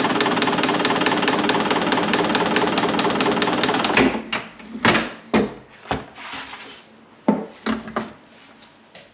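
A motor-driven machine running with a fast, even rhythm stops abruptly about four seconds in. A series of separate knocks and clatters follows and dies away.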